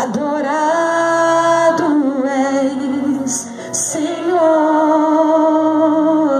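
A woman sings a hymn into a handheld microphone, in long held notes, some with vibrato. She breaks briefly between phrases about two and four seconds in.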